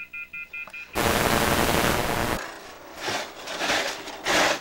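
A telephone gives a quick run of short beeps for about a second; then, after a sudden loud rushing noise, a snow shovel scrapes across a concrete driveway in several strokes, the loudest near the end.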